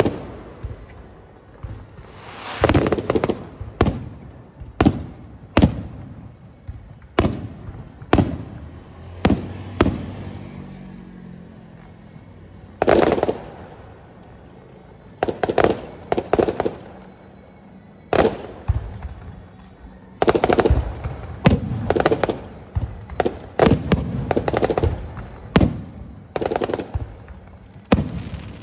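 Aerial fireworks shells bursting overhead, a string of sharp bangs that come singly and in quick clusters, with a brief lull about a third of the way in.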